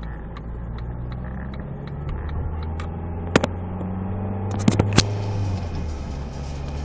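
Car engine and road noise heard from inside the cabin while driving slowly: a steady low hum whose note shifts up a little partway through and settles back near the end. There are a few sharp clicks about three and a half seconds and five seconds in.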